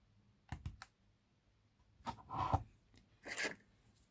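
A few light clicks about half a second in, then two short scraping or rattling handling noises a second or so apart: small objects being handled on a work surface.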